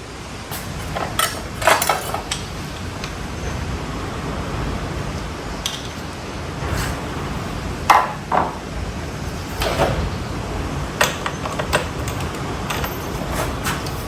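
Hand tools and metal parts clinking and knocking in about a dozen irregular strikes, over a low steady hum.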